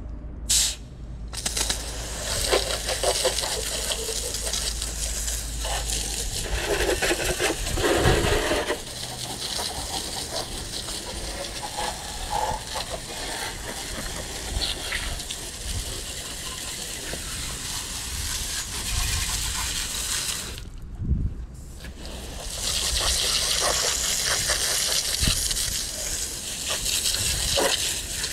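Water jet from a garden-hose pistol-grip spray nozzle hitting a zero-turn mower's deck, seat and tyre and splattering onto asphalt, as a steady hiss. The spray stops briefly near the start and again about three-quarters of the way through.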